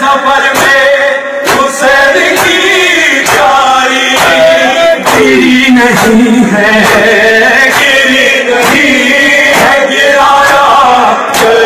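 Men chanting an Urdu noha, a Shia mourning lament, in a slow, drawn-out melody. Sharp strikes keep an even beat of a little under one per second under the voices: matam, the mourners beating their chests in time with the lament.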